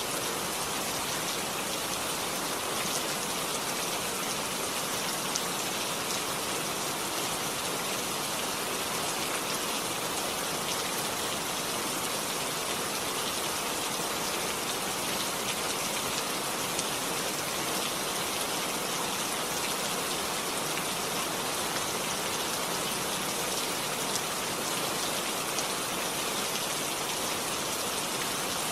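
Steady rainfall: an even hiss of rain with fine drops pattering on a surface.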